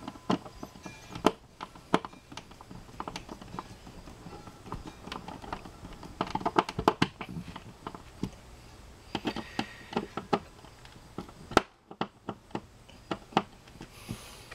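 Screwdriver driving the mounting screws of a 240-volt receptacle and its plastic wall box: an irregular run of small clicks, ticks and scrapes of the metal tip in the screw heads, thickest about halfway through, with a few sharper single clicks.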